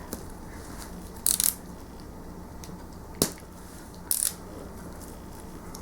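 Packaging being cut and pulled open: two short scraping rustles, about a second in and about four seconds in, and one sharp click around three seconds in.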